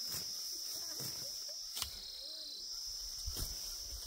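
Grass being cut by hand, with rustling and two sharp cutting strokes about two and three and a half seconds in, under a steady high chirring of insects.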